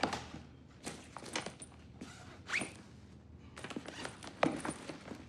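Scattered light clicks and knocks of small objects being handled and set down on a workbench, with a brief squeak about halfway through and a quick run of clicks near the end.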